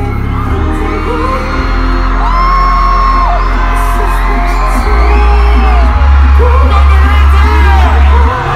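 Loud live concert music with a heavy bass, under screams and whoops from the crowd. The bass gets louder about five seconds in.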